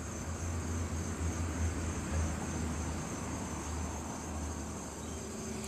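Outdoor background: a steady low rumble with a high, steady insect drone, typical of crickets, over it.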